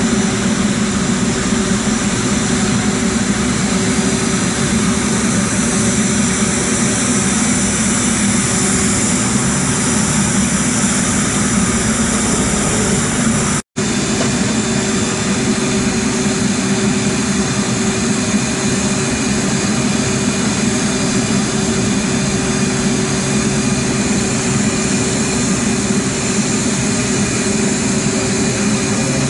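Aircraft engines running steadily nearby, a constant drone with a high turbine whine over it. The sound cuts out for an instant about halfway through.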